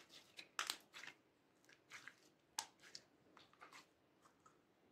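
Glossy slime with small beads mixed in, squeezed and kneaded by hand, giving a run of short wet pops and clicks. The loudest pops come about half a second in and about two and a half seconds in, and they thin out near the end.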